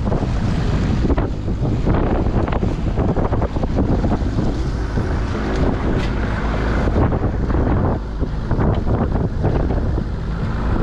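Small boat running at speed through chop on its Evinrude 60 outboard: wind buffets the microphone, and the hull slaps on the waves amid spray, over the motor's drone.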